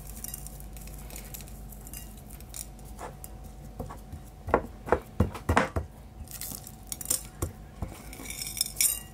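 Hands salting and rubbing steaks on a ceramic plate: scattered small knocks and clinks as fingers press the meat and the plate shifts, over a steady low hum.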